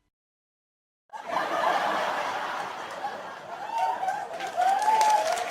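Audience laugh-track sound effect: a crowd laughing, starting suddenly about a second in, with clapping joining near the end.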